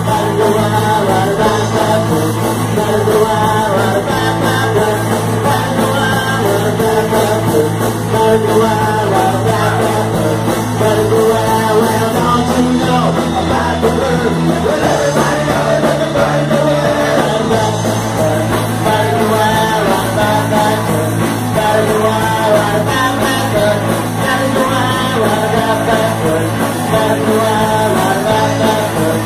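Live punk rock band of electric guitar, bass guitar and drums playing loudly, with singing over it. Around the middle the bass line moves to different notes for a few seconds, then returns.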